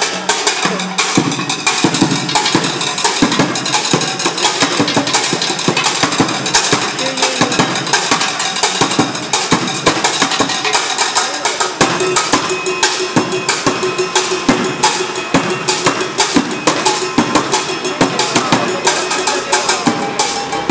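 Street bucket drumming: drumsticks beating fast, continuous rhythms on upturned plastic buckets.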